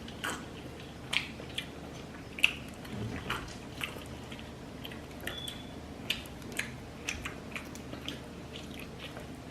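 Close-miked chewing and lip-smacking: irregular wet mouth clicks, often one or two a second, over a soft steady background.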